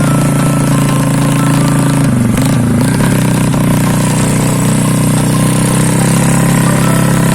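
Suzuki Smash 110 motorcycle's single-cylinder four-stroke engine running while riding, its pitch dipping briefly about two seconds in and then coming back up and holding steady.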